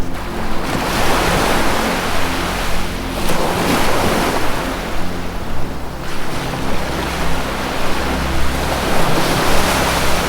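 Ocean waves washing in, the surf noise swelling and falling back every few seconds, over a soft, low sustained musical drone that shifts to a new low note about halfway through.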